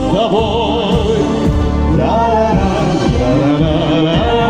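Live concert orchestra playing an instrumental interlude of a song: a melody with vibrato over a full low accompaniment.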